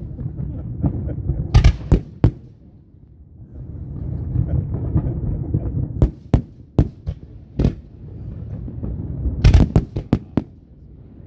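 Fireworks going off in sharp bangs: three near two seconds in, a string of about five between six and eight seconds, and a rapid cluster near ten seconds, over a continuous low background noise.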